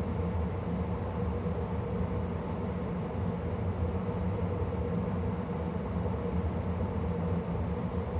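2013 Carrier Sentry gas furnace running steadily: a low motor hum over the even rush of the blower moving air, with no change in speed, as the unit winds through its shutdown cycle.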